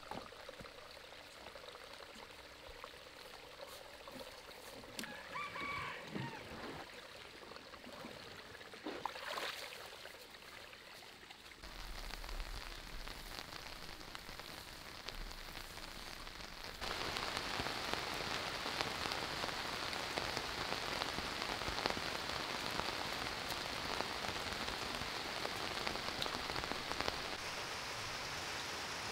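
Water splashing from a watering can's rose onto soil and seedlings, then steady rain falling, louder and even, from a little past halfway through.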